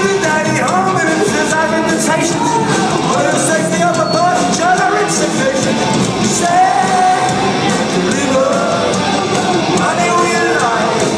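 Live rock band playing loud, with electric guitars and drums under a male lead vocalist singing a melody line, recorded from among the audience in a large hall.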